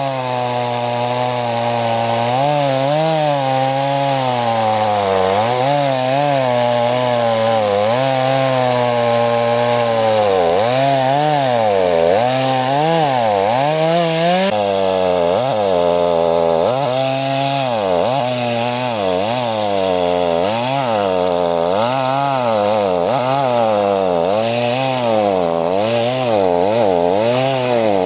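Two-stroke chainsaw cutting through pond ice, its engine pitch rising and falling every second or two as it works the bar through the ice.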